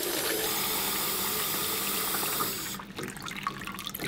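Water running from a chrome sink tap into a plastic cup. The steady rush thins a little under three seconds in to a quieter, uneven splashing.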